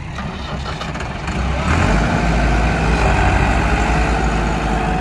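Tractor's diesel engine running, then revved up about two seconds in and held there before easing off near the end.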